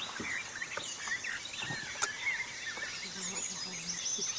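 Several songbirds singing at once in a dawn chorus: many overlapping chirps and whistles, with a sharp click about two seconds in and a rapid high trill near the end.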